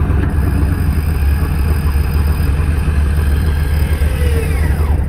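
Off-road vehicle engine idling steadily with a low rumble.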